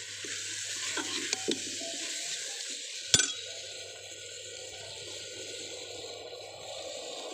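Onion-tomato masala sizzling in ghee in a cooking pot, a steady frying hiss. Light metal clinks come about a second in, and a single sharp knock just after three seconds.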